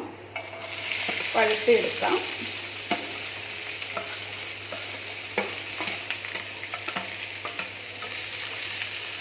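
Onions and green chillies frying in hot oil in a pan: a steady sizzle that starts about half a second in, with a utensil stirring and clicking against the pan now and then.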